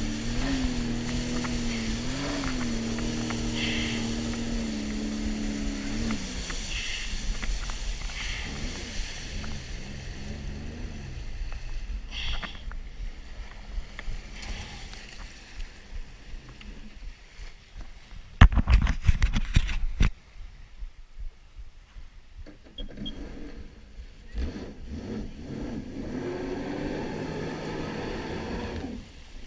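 Jet ski engine running at a steady speed with small rises and falls in pitch, then throttled back to a low running sound. A loud rough burst of noise lasts about two seconds past the middle, and near the end the engine revs up again, its pitch rising.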